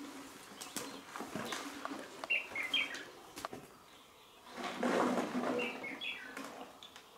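Small birds chirping in quick, short falling notes, in two bursts, over scattered light knocks and a burst of rustling from someone clambering over rock and through brush about five seconds in.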